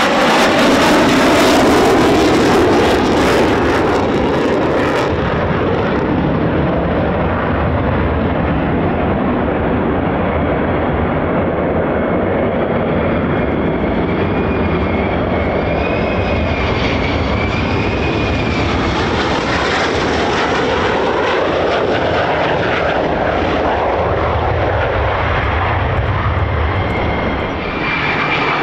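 Lockheed Martin F-35A Lightning II jet noise as it flies a low approach past and goes around: a loud roar that is strongest in the first few seconds, then a steadier rumble with a faint whine as it climbs away.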